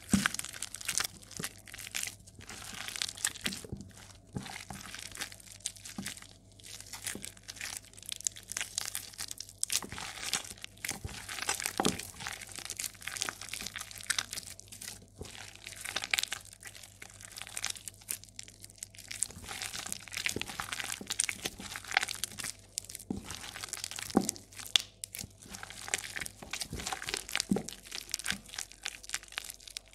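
Hands squeezing and kneading soaked, crumbled soap: wet crunching and crackling, in repeated irregular squeezes.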